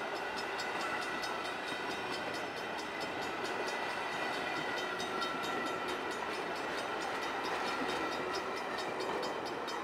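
VIA Rail passenger cars, Renaissance coaches followed by a stainless-steel Budd dome car, rolling past on steel wheels and rail. A steady rolling noise with faint high ringing tones.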